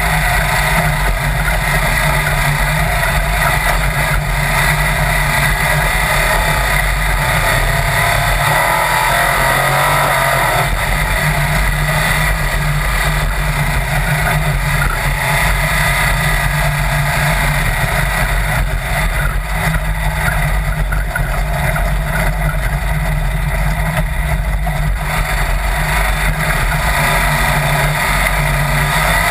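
Sand rail dune buggy engine running while driving fast across the sand, with steady wind rushing over the open cage.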